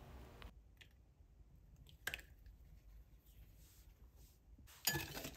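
Mostly quiet room tone with a single sharp click about two seconds in, a metal spoon touching the glass mixing bowl. Near the end a louder stretch of small clicks and scraping starts.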